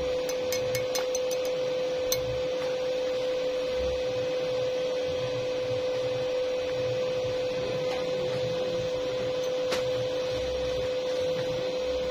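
A steady, even hum on one pitch over a continuous faint hiss, with a few small ticks in the first two seconds and one near the end, from electric arc-welding equipment.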